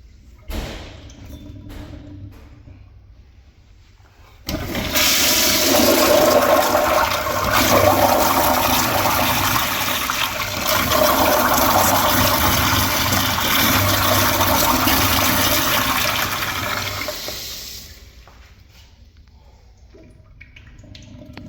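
A 2000s Crane Plumbing fixture flushing: after a short knock about half a second in, a sudden loud rush of water starts about four seconds in, runs for around twelve seconds, then tapers away.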